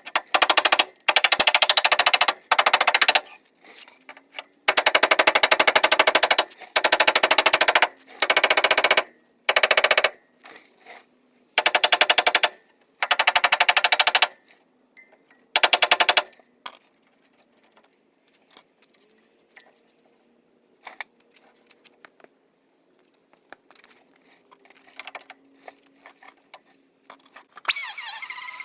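A pneumatic impact tool hammering in short bursts of rapid blows, about nine times, followed by scattered lighter clicks. About a second before the end a loud, high-pitched whine starts.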